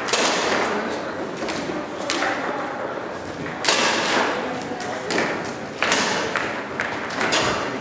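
Table football play in a large sports hall: irregular sharp knocks and bangs of balls and rods hitting, about ten of them, the strongest near the middle and about six seconds in, over a background murmur of voices.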